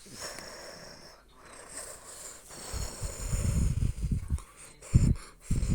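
A sleeping dog snoring: a long wheezy, whistling breath, then a low rattling snore, and two short snorts near the end.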